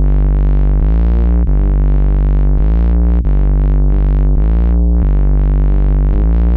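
Electronic music: sustained synthesizer chords over a deep, steady bass, the chords changing every second or so.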